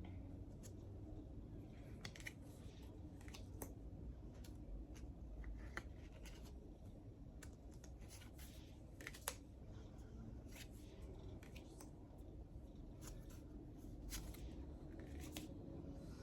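Tarot cards being handled: irregular soft clicks and brushes of card stock as cards are moved and laid down, with one sharper click about nine seconds in.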